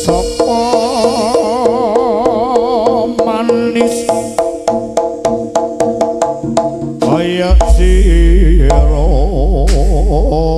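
Jaranan ensemble music: a wavering melodic line over drum strokes, about four a second in the middle, with a deep sustained low tone coming in about seven seconds in.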